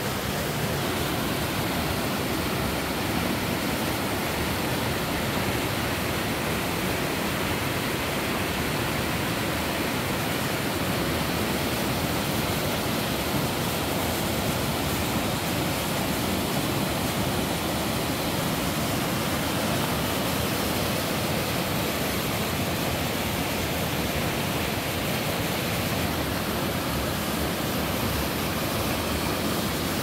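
Waterfall cascading down a rock chute into a deep plunge pool: a steady, even rush of white water.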